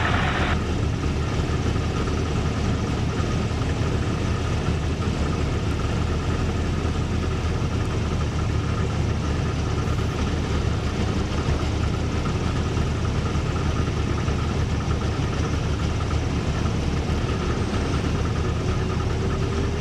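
Motorglider's engine and propeller droning steadily, heard inside the cockpit during the descent in the landing pattern with the landing gear down.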